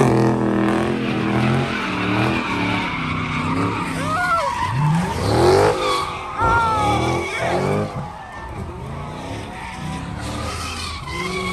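Muscle car engines revving hard again and again, rising and falling in pitch, while the rear tyres screech and spin through donuts. The sound eases off somewhat in the last few seconds.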